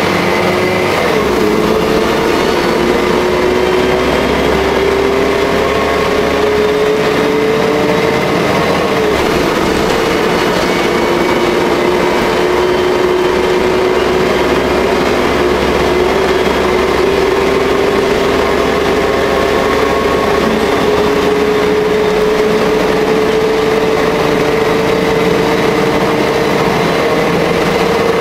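The engine and drivetrain of a Jelcz L100 bus, heard from inside the passenger cabin while the bus drives. A whine climbs steadily in pitch as the bus accelerates, drops suddenly at two gear shifts about a second in and about nine seconds in, then rises slowly for the rest, over a low rumble and road noise.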